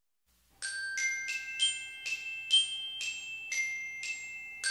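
Intro jingle of bell-like struck notes: about ten ringing notes of varying pitch, roughly two a second, with one more struck just at the end and left ringing.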